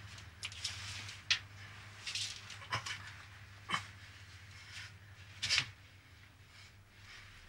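Short animal cries: a handful of brief, sharp calls at irregular intervals, some falling in pitch, over a low steady hum.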